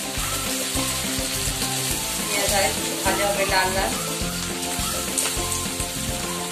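Sliced onions and garlic sizzling in hot oil in a kadai, stirred with a spatula. Background music plays under the sizzle.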